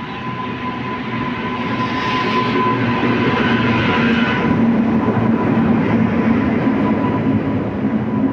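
Passenger train running past on the track, its wheel and coach rumble swelling over the first few seconds and staying loud, with a thin steady tone running under it.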